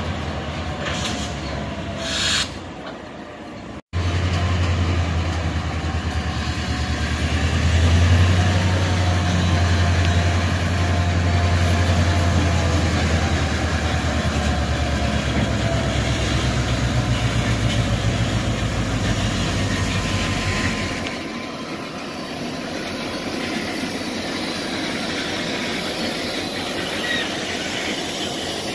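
Florida East Coast Railway diesel locomotive moving slowly with a cut of hopper cars, its engine making a loud steady low drone over the rumble of wheels on the rails. The sound cuts out for an instant about four seconds in, and the low drone falls away about two-thirds of the way through.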